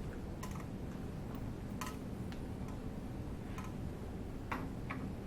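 A few light, irregular clicks and taps of small objects being handled and set down on a table, over a steady low hum.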